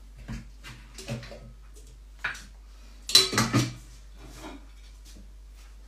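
Dishes and cutlery clattering as they are handled on a kitchen counter: a few short knocks and clinks, with a louder run of clatter about three seconds in.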